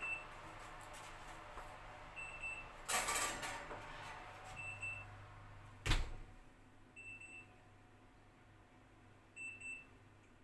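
Kitchen oven's timer alarm giving a high double beep about every two and a half seconds, the signal that baking time is up. A clatter about three seconds in and a sharp knock near six seconds, over a low steady hum.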